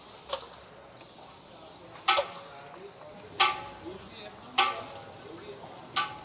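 Handfuls of raw buffalo meat dropped into a large pot of hot ghee and fried onion. Each drop is a sudden splash of hissing fat, five in all, about every second and a half, over a steady sizzle.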